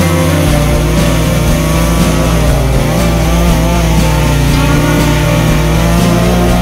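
Echo CS-620P two-stroke chainsaw running at high revs, its engine pitch wavering up and down.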